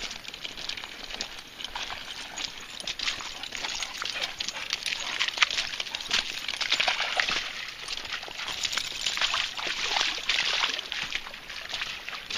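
Dogs moving about in wet, muddy ground close by: a dense, irregular crackle of rustling and splashing.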